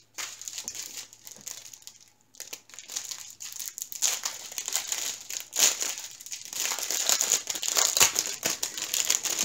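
Clear plastic packaging crinkling and crackling as it is handled, in irregular dense rustles that grow louder after about two seconds.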